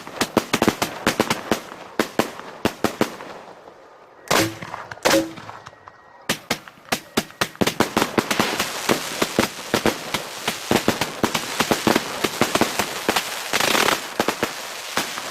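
A 'Volcano 360' firework going off: a rapid series of sharp pops and crackles. It eases off briefly, with two louder bursts about four and five seconds in, then picks up again into dense, almost continuous crackling.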